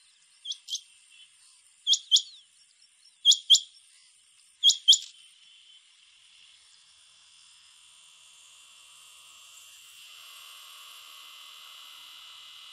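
Rain quail calling four times, each call a pair of sharp, high whistled notes, about a second and a half apart. After the calls a steady high insect hum rises and holds.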